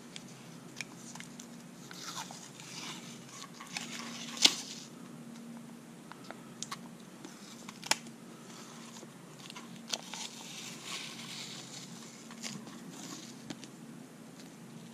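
Blue painter's tape being pulled off its roll, crinkled and pressed around the top of a black polymer Magpul PMAG rifle magazine. Rustling and crackling runs throughout, with a few sharp clicks; the loudest comes about four and a half seconds in.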